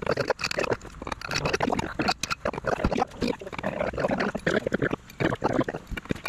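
Lug nuts being worked loose on a Bobcat S175 skid steer's wheel with a wrench and long breaker bar: irregular metal clicks and scrapes.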